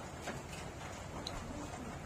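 Soft clicks and smacks of eating, with a pigeon cooing low in the background.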